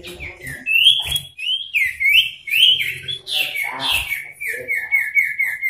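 Male common iora singing in agitation, as toward a rival: a run of loud whistled notes that each slide downward, a harsher rasping note about three and a half seconds in, then a fast trill of repeated whistles, about five a second, to the end.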